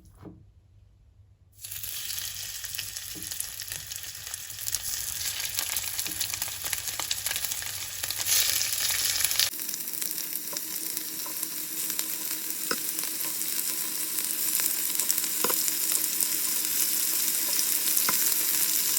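Floured chicken pieces frying in hot olive oil in a pan: a steady loud sizzle that starts suddenly about a second and a half in, with occasional sharp pops of spattering oil.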